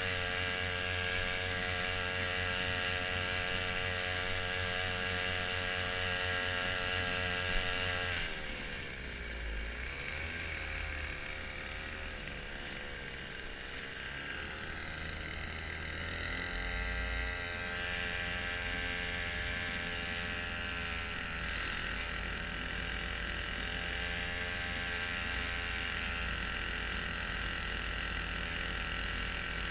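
Small engine of a homemade side-mounted kayak motor running steadily. About eight seconds in its speed drops and wavers, then picks up again around seventeen seconds and settles into a steady run.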